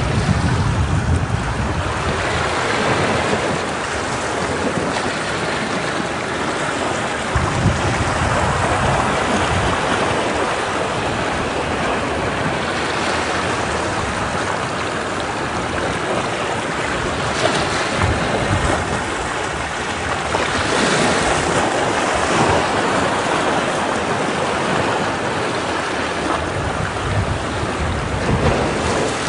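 Ocean waves breaking against rocks, a steady rushing wash of surf that swells every few seconds.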